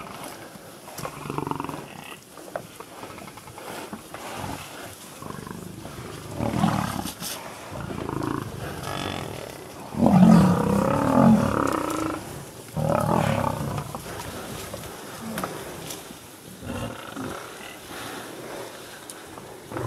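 Lions growling in several loud bouts while defending a buffalo kill, the loudest bout about ten seconds in.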